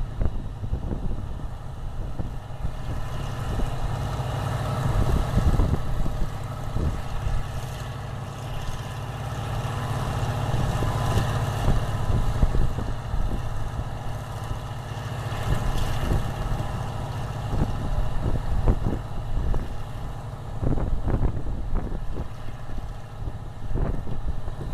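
A tractor engine runs steadily at a low, even speed, with wind buffeting the microphone in rough gusts throughout.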